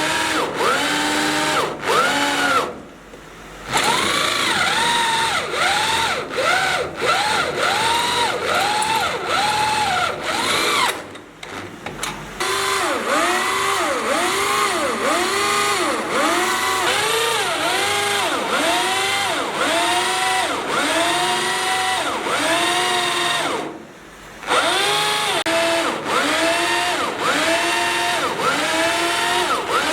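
Electric power drill boring into steel. The motor's pitch rises and falls over and over, about one and a half times a second. It stops briefly three times: about three seconds in, around eleven seconds, and around twenty-four seconds.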